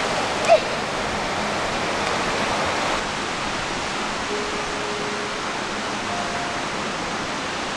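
Steady rush of surf washing onto the shore, with a short sharp sound about half a second in and a few faint held tones from about four seconds in.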